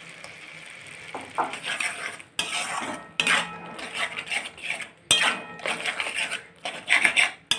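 Steel spatula scraping and stirring in a metal pan, working thick mashed roasted eggplant through the spice paste as it fries (the bhuna stage of begun bharta). After a quieter first second or so, the scrapes come in uneven strokes, a few of them sharp and loud.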